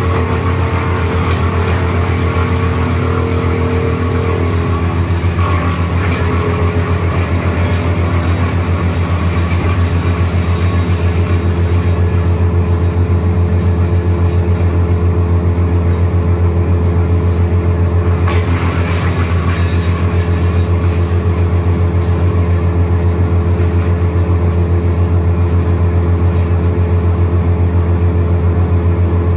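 Wood chipper's engine running steadily at a constant speed, with a strong even hum.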